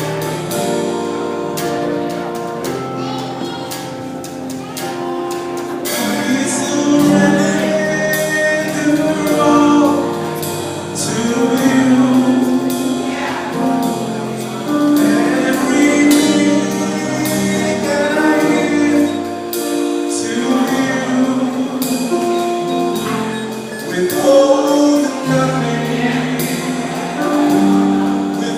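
Gospel worship band performing live: group vocals singing over sustained instrumental chords. The singing grows fuller and louder about six seconds in.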